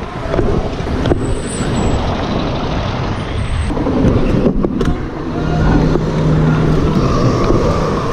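City street traffic heard from a moving kick scooter: wind rush on the microphone and the wheels rolling on asphalt, with a tour bus running close alongside. A steady low hum sounds for about two seconds past the middle.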